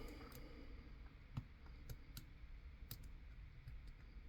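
Faint, irregular metallic clicks of a lock pick and tension wrench working the pins in the brass core of a Penn mortise cylinder lock.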